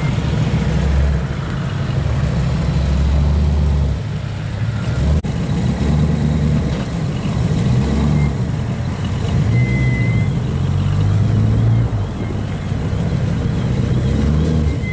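Classic car engines running at low revs, a deep rumble that rises and falls in loudness.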